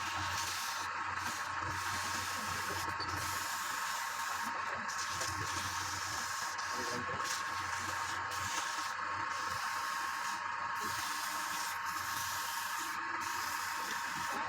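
Wood lathe running steadily, with a constant whine.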